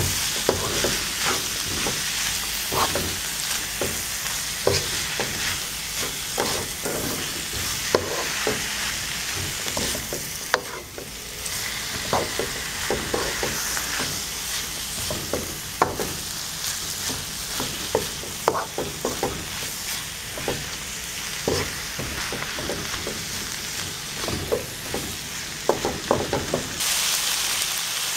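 Chicken liver and vegetables stir-frying in a wok: a steady sizzle, with the spatula scraping and knocking against the pan many times as it tosses the food. The sizzle turns louder and more even near the end.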